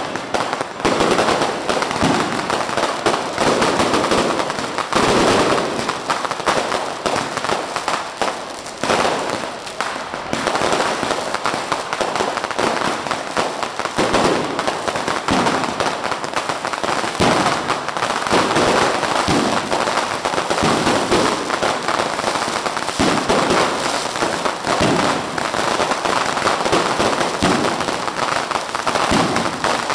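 Fireworks going off in a dense, unbroken barrage of crackling and popping, with sharp bangs coming several times a second throughout.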